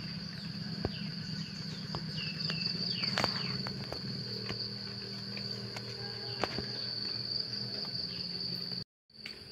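Insects trilling in one steady, unbroken high-pitched note, with a low steady hum beneath, a few short falling chirps in the first few seconds and scattered light clicks. The sound cuts out briefly near the end.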